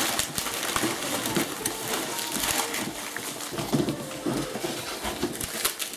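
Wrapping paper and packaging rustling and crinkling as it is handled, with a few low, indistinct voice sounds in the middle.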